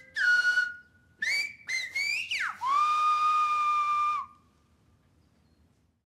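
Whistled notes with a breathy hiss around each: a few short sliding notes, some rising and some falling, then a sharp downward swoop into one long held note that stops a little over four seconds in.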